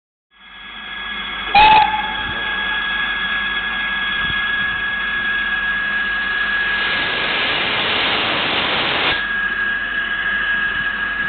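Steam locomotive hissing steam, fading in at the start. A short, loud toot comes about a second and a half in, and a louder rush of steam runs for a couple of seconds past the middle.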